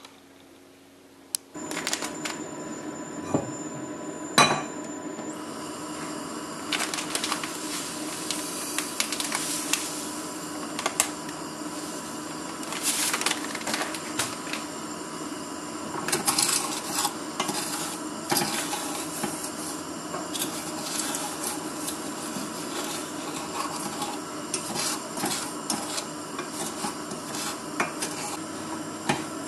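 Wooden spoon knocking and scraping in a stainless saucepan of dry granulated sugar on a gas stove, with scattered sharp clicks over a steady hiss.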